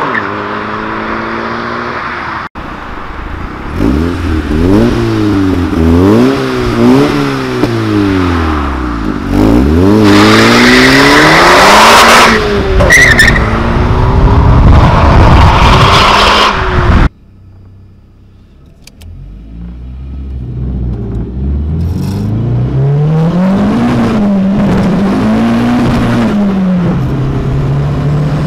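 VW Lupo fitted with a 1.8-litre turbocharged four-cylinder and a Garrett GT30 turbo, running loud and revving up and down again and again. After a cut about 17 s in it is heard again, quieter at first, then accelerating hard with its revs climbing and dropping at gear changes during a 0–100 km/h run.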